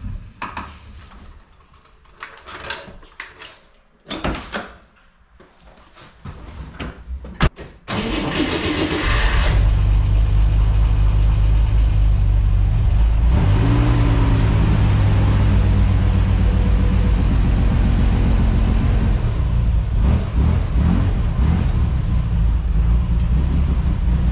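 Scattered clicks and knocks as a floor jack is worked and lowered. About eight seconds in, the air-cooled, rear-mounted flat-six of a 1965 Chevrolet Corvair starts and runs steadily, with a brief rise in revs a few seconds after it catches.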